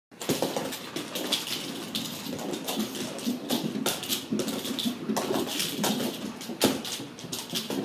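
Ragdoll kittens scampering down wooden stairs: a busy, irregular run of soft thumps and clicks from their paws on the treads.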